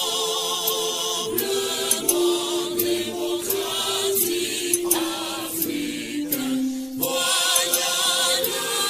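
Closing music: a choir singing a slow melody in long held notes with vibrato, the pitch stepping from note to note.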